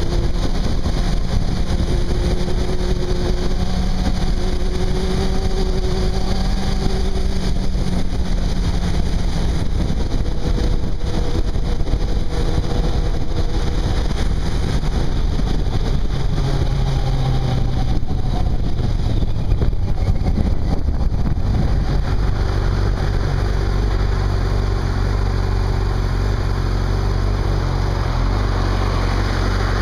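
Yamaha YZF600's inline-four engine running at road speed with wind rushing over the microphone, easing off around sixteen seconds in and settling to a steady idle for the last several seconds as the bike stops.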